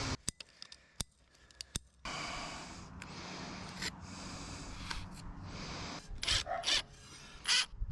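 Scraping and rubbing sounds, preceded by a few sharp clicks in the first two seconds.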